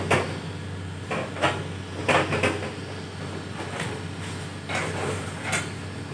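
Plastic front cover of a Panasonic wall-mounted AC indoor unit being handled and lifted back onto the unit, giving a series of short plastic clacks and knocks.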